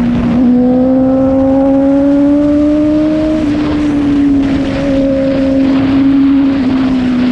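Honda CBR650F's inline-four engine through an Akrapovic full-system exhaust with the dB killer removed, running loud at steady high revs. The pitch creeps up slightly over the first few seconds and then eases back.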